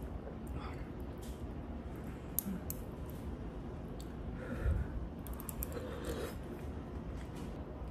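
Metal chopsticks and spoon clicking against a ceramic dish of soup, with soft eating sounds. There are scattered light clicks and one louder knock a little past halfway.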